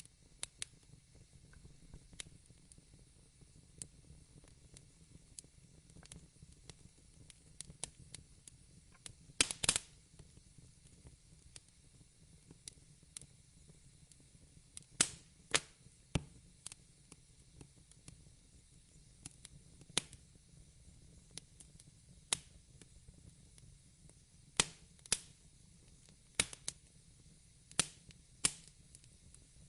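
Fireplace fire crackling: irregular sharp pops and snaps, with a quick cluster of louder pops about nine seconds in, over a low steady rumble.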